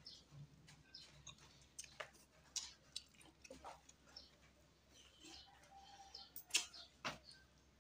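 Close-up eating sounds: scattered wet lip smacks and mouth clicks of someone chewing and sucking fish and vegetables eaten by hand, with a couple of sharper smacks about two-thirds of the way through.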